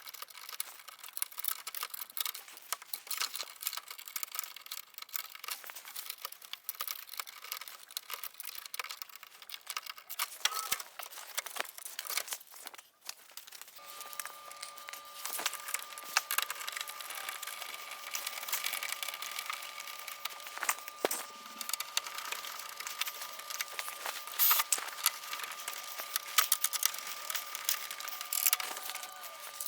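Rapid crinkling, crackling and small clicks of hand-handling work, with a steady high hum that starts about halfway through.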